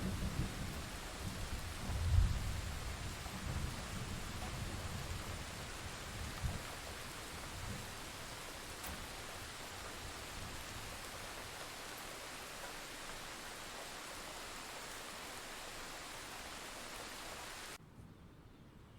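Steady rain with a low rumble of thunder that peaks about two seconds in and dies away over the next few seconds. Near the end the rain cuts off suddenly, leaving only a faint hiss.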